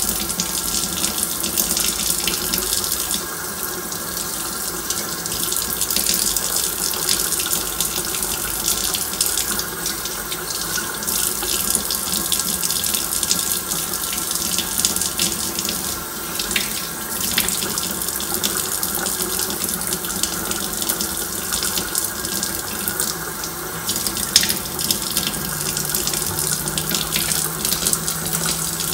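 Kitchen faucet running hard into a stainless steel sink as catfish fillets are rinsed under the stream, a steady rush of water with a few brief knocks and splashes.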